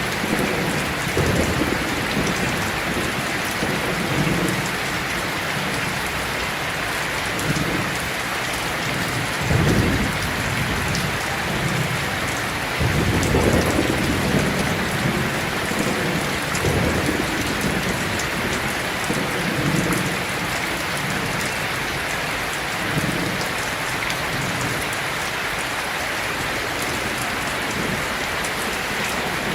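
Heavy steady rain with rolls of thunder rumbling low underneath, the two strongest rolls about a third and halfway through.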